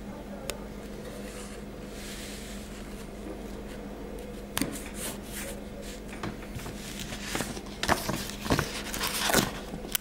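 Sticker sheets and glossy paper stickers being handled and peeled: scattered crinkles and rustles of paper begin about four and a half seconds in and grow denser and louder near the end, over a steady low hum.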